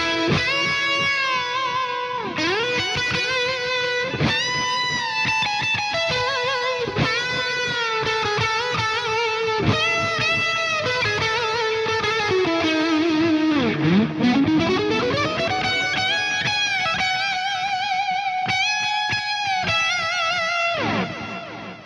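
Telecaster-style electric guitar played through a Source Audio Collider delay and reverb pedal: a lead line of sustained notes with vibrato and string bends, with echoes and reverb trailing behind. About two-thirds through the pitch swoops deep down and back up, and near the end a slide down leaves a fading echo tail.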